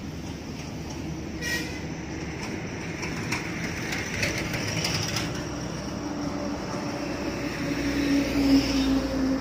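A heavy vehicle rumbling past, its droning engine note growing louder near the end.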